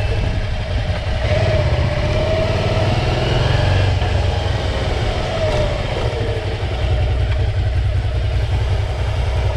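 Suzuki V-Strom 650's 645 cc V-twin engine running steadily as the motorcycle rides along.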